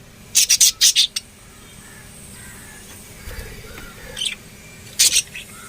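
Lovebirds giving shrill, harsh chirps: a quick run of about five loud calls in the first second, a single call a little past four seconds, and a couple more near the end.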